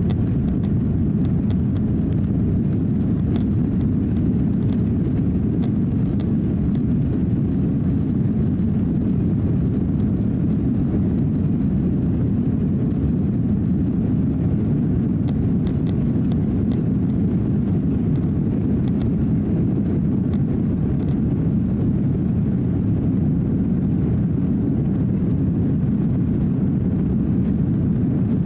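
Steady, deep rumble of engine and rolling noise inside the cabin of an Airbus A330-300 with Rolls-Royce Trent 700 engines, running on the ground toward takeoff.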